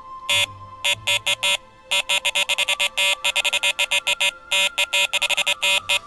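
Electronic carp bite alarm sounding a run, beeping in fast, uneven strings as line is pulled over it: a fish has taken the bait. The beeps start a moment in, pause briefly, then come almost without a break.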